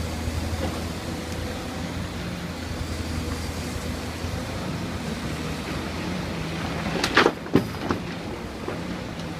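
Hydraulic excavator's diesel engine running steadily, with two loud, sharp clanks about seven seconds in, half a second apart.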